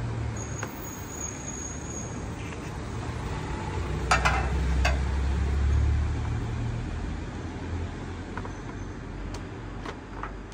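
A low rumble that swells midway through and then fades. A few short clicks and ticks come from the LED batten fixture and its cable being handled and worked with pliers.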